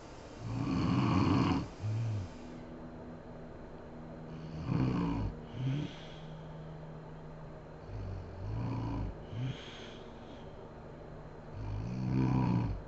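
A sleeping woman snoring, one snore every three to four seconds, some in two parts. The loudest come about a second in and near the end.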